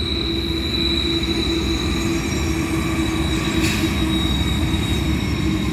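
BNSF freight train's diesel locomotives passing close by, a heavy steady rumble of engines and wheels on rail, with a steady high-pitched squeal over it.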